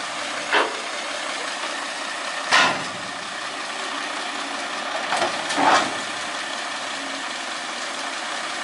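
Excavator diesel engine running steadily as the machine is manoeuvred, with a few brief louder noises over it, the loudest about two and a half seconds in and just before six seconds in.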